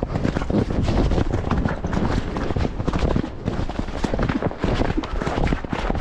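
Horse's hoofbeats on a stubble field, a fast, irregular run of thuds, with wind rumbling on the moving microphone.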